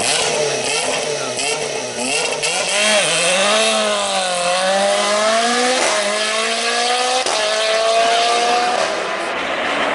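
A Lotus race car's engine revving hard as the car pulls away and accelerates through the gears. The pitch climbs and snaps back at upshifts about six and seven seconds in, then climbs again before fading into road and tyre noise near the end.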